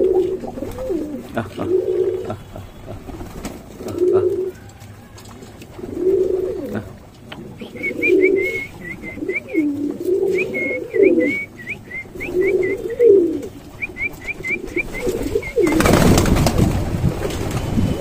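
Rock pigeons cooing over and over, a low wavering coo every second or two, with a run of high, quick chirps through the middle. Near the end comes a sudden loud rush of flapping wings as the flock lifts off.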